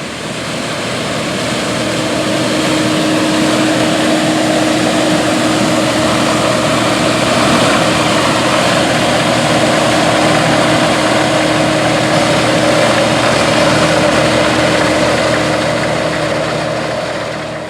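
Heavy diesel harvest machinery running steadily at working load: a constant low hum over a broad, even mechanical rush. The sound fades in at the start and fades out near the end.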